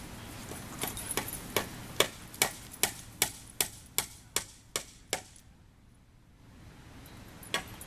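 Small metal pieces jingling in a steady rhythm, about two and a half clinks a second, like tags swinging with each step; the clinking stops about five seconds in and starts again near the end.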